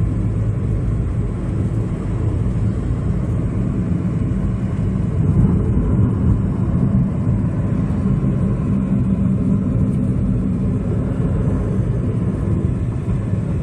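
Steady low rumble of a vehicle being driven down the road: engine and road noise, even throughout.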